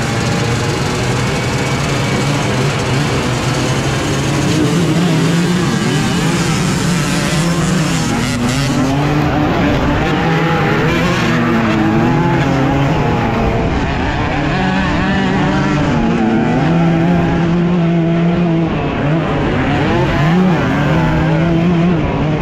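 Dirt bike engines revving hard at a race start, then the rider's own bike accelerating on a dirt track among other bikes, its engine pitch climbing and dropping again and again as the throttle opens and the gears change.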